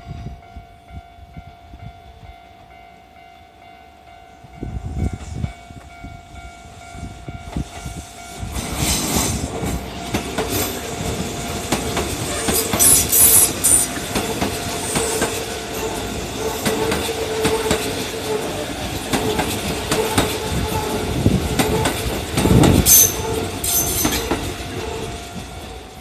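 A Kintetsu electric train passes over a level crossing: the rumble and clatter of its wheels over the rail joints builds from about a third of the way in and carries on loudly until near the end, with two short high-pitched bursts in the middle and near the end. Beforehand, a faint steady ringing of the crossing alarm can be heard.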